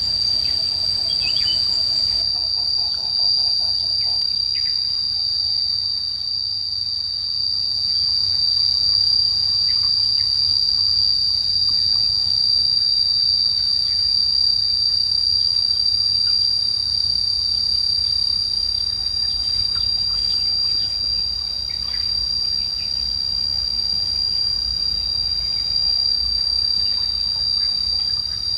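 Steady chorus of insects, a continuous high-pitched drone, with a few faint bird chirps and a low rumble underneath.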